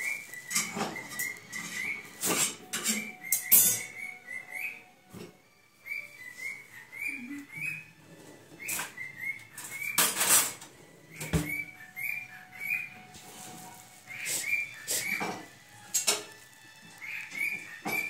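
Lutino cockatiel whistling a run of short, rising chirped notes, repeated over and over, interrupted by several loud scratchy rustles.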